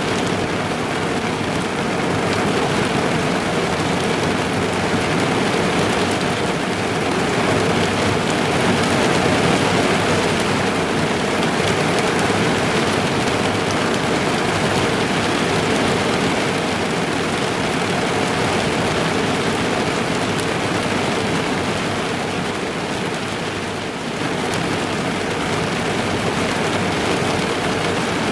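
Heavy rain drumming steadily on the roof and windows of a car, heard from inside the cabin.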